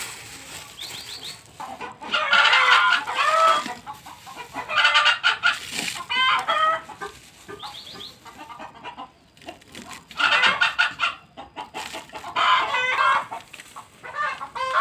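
Chickens clucking and cackling in about five separate bouts, with quieter gaps between.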